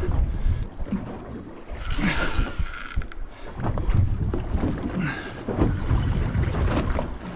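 Wind rumbling on the microphone over the sound of a small boat on the water, with a short high hiss about two seconds in.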